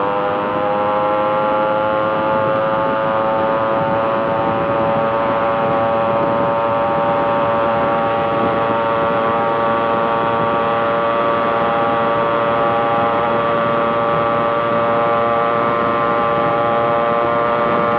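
Yamaha RX air-cooled two-stroke single-cylinder motorcycle engine, fitted with an aftermarket inbuilt-chamber exhaust, cruising at steady throttle as a high, buzzy whine. Its pitch creeps up over the first couple of seconds and then holds steady, with wind and road rush underneath.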